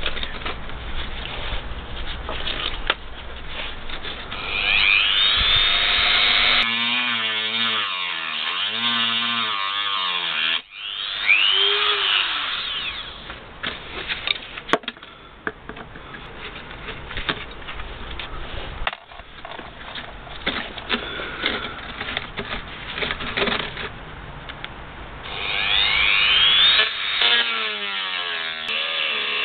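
Handheld rotary tool whining as it runs against the rusty screws that hold the blower motor into a plastic heater housing. It spins up several times, and its pitch wavers and sags in two longer spells as it bites.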